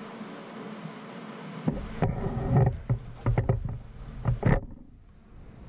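Hand-operated Cowboy Outlaw leather sewing machine stitching through a thick leather holster: a run of clunks, a few a second, starting about a second and a half in and stopping near the end.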